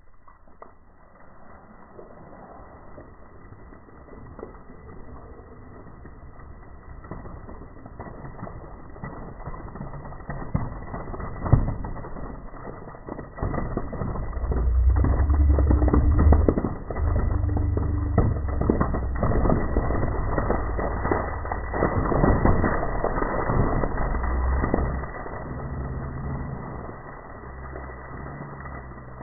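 Slowed-down sound of a 2-litre bottle of Pepsi erupting into a foam geyser after Mentos are dropped in: a deep, drawn-out rushing spray that swells about halfway through and falls away near the end. There is a single sharp knock shortly before the rush builds.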